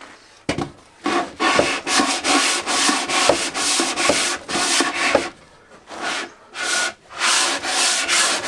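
Hand sanding: a large sanding block faced with 180-grit sandpaper is pushed in quick back-and-forth strokes over the edges of a wooden drawer unit, levelling the small steps between its parts. The strokes pause for about a second a little past the middle, then go on.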